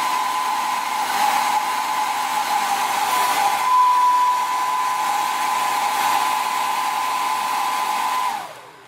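Hairdryer running on its cool, high setting, blowing air into an exercise ball's valve: a steady rush of air with a steady motor whine. Near the end the whine drops in pitch and the sound fades as the dryer winds down.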